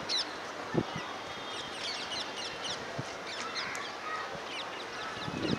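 Many birds chirping in short, quick, falling notes over a steady outdoor background hum.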